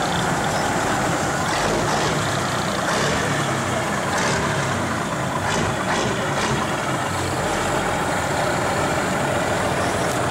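Engine of a vintage Mack B-model semi tractor running steadily as the truck rolls slowly past, pulling an empty flatbed trailer.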